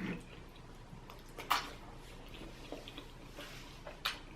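Quiet mouth and eating sounds during a mukbang, with a sharp click about one and a half seconds in, another near the end, and small ticks between.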